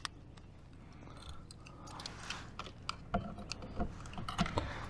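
Irregular light clicking and knocking of fishing tackle being handled in a kayak, one sharp click at the start, then busier from about two seconds in.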